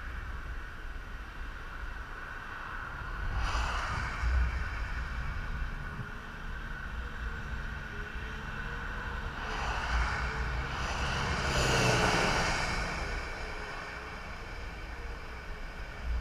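Vehicles passing on the highway: tyre and engine noise swells and fades once about four seconds in, then again, louder and longer, from about ten to thirteen seconds. Under it runs a steady low wind rumble on the microphone.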